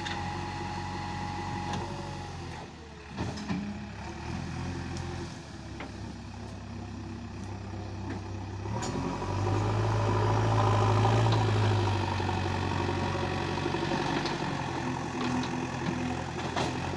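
JCB 3DX backhoe loader's four-cylinder diesel engine running steadily while the backhoe digs, with a few short knocks, the clearest about three seconds in. About halfway through the engine revs up and grows louder for a few seconds under load, then settles back.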